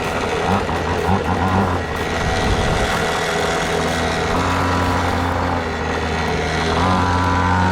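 Pocket bike's small two-stroke engine running steadily, its pitch shifting up slightly about four seconds in and settling back near the end.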